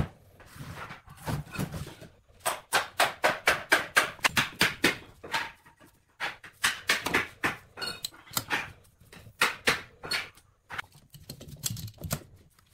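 Steel bar clamps being slid into place and screwed tight on a wooden glue-up: a quick run of sharp metallic clicks and knocks, about five a second, from about two and a half seconds in, then more irregular clicks and knocks.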